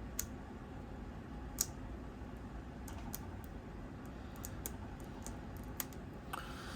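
Scattered small clicks and ticks of an X-Acto knife and plastic shrink wrap being worked on a cardboard deck box, with two sharper clicks in the first two seconds and lighter, irregular ticks after.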